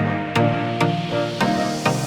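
Background music with a steady beat: electronic instrumental track with pitched notes and a beat about every half second.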